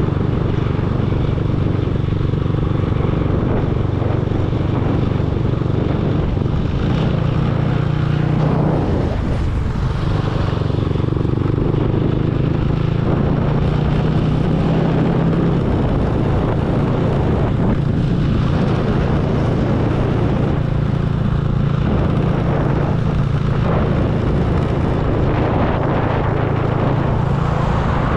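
Motorcycle engine running steadily while riding, with wind rushing over the microphone; the engine's hum shifts only slightly in pitch.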